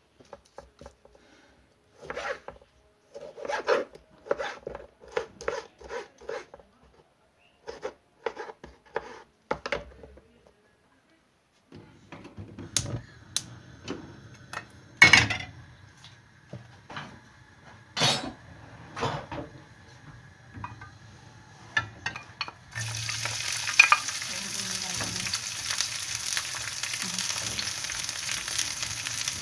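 Kitchen utensils knocking and clinking in a run of separate strokes, then food going into a hot pan about 23 seconds in and sizzling steadily as it fries.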